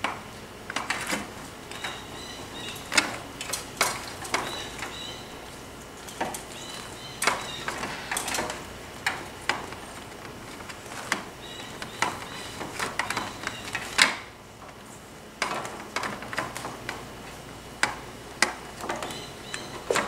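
Clear plastic condensate hose being handled and fed under a garage door: irregular clicks, taps and rustles of the tubing against the door and the concrete floor.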